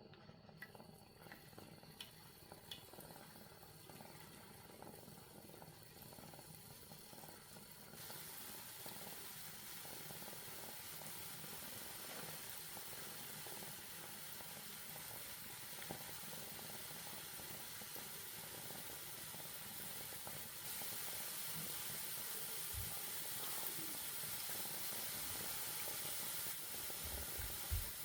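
Gram-flour batter for mihidana deep-frying in hot fat: a steady sizzling hiss that gets louder about eight seconds in and again about twenty seconds in, with a few soft knocks near the end.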